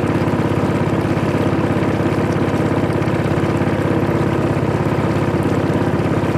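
Small river boat's motor running steadily under way, with a fast, even pulse.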